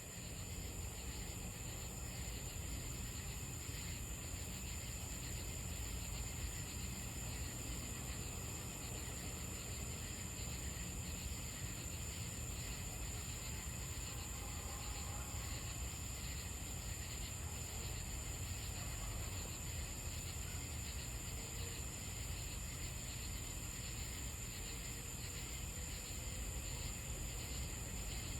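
Night insect chorus with a steady, continuous high-pitched drone, over a low rumble.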